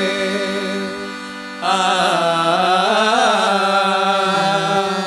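Men singing a Mappila oppana song, holding long wavering notes over a steady low drone, with no clear words. A louder new phrase begins about one and a half seconds in.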